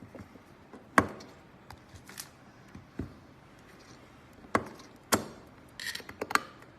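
Sharp clicks and knocks from handling the USB hub and its cables on a hard desk surface: single knocks about a second in and at three seconds, two more a little past four and a half seconds, then a quick run of clicks near the end.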